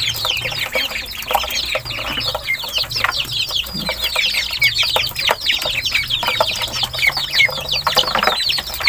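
A brood of ducklings and chicks peeping nonstop while feeding, a dense chorus of short falling chirps, with light clicks of bills pecking in the feed basin.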